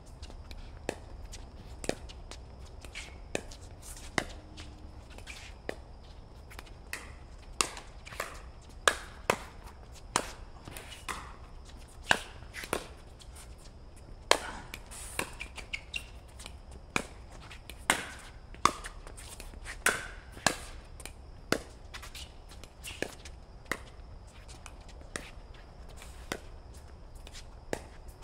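Pickleball rally: paddles striking the hard plastic ball and the ball bouncing on the court, heard as irregular sharp pops about one or two a second.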